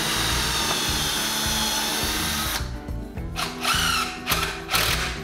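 Cordless impact driver running steadily for about two and a half seconds, driving a screw through two clamped cabinet face frames to join them, then stopping.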